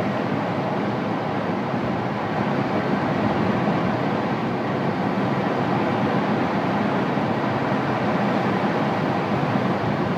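Steady rush of airflow over a glider's canopy in flight, an even noise with no engine note.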